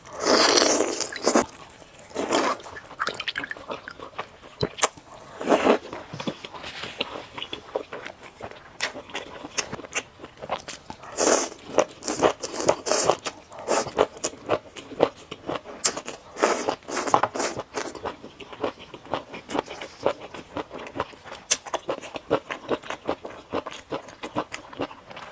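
Close-miked eating: a long slurp of spicy instant noodles near the start, then steady wet chewing with rapid mouth clicks and smacks, broken by several shorter slurps.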